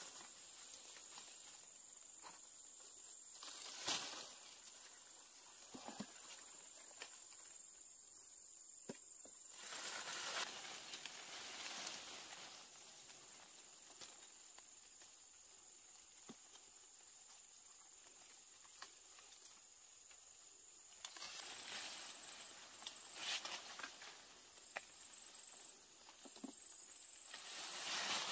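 Faint outdoor background with a steady high-pitched tone, swells of rustling noise and scattered light clicks and taps.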